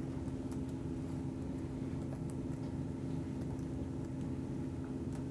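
Quiet room tone: a steady low mechanical hum with a few faint clicks.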